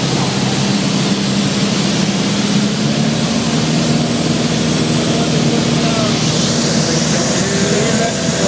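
Steady drone of a Piper Warrior's four-cylinder Lycoming engine and propeller at cruise power, heard inside the cabin.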